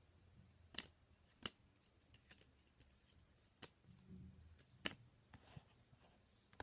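Faint handling of baseball cards being sorted through: four scattered sharp clicks and a brief soft rustle a little past the middle, over near silence.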